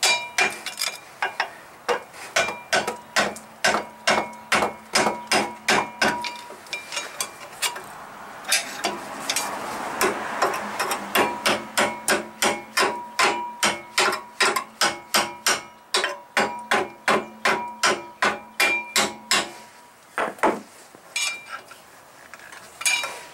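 Steady hammer blows on a screwdriver wedged against a brake pad, knocking the pad out of a Chevy Astro's front caliper bracket. The blows come about two a second, each with a bright metallic ring, and stop near the end with a few last taps. The pads are seized in the bracket slides, which should never be that tight.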